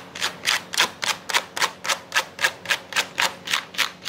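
A hard object scraped rapidly back and forth across the surface of an anti-scratch laminate panel in a scratch-resistance test, about four even strokes a second.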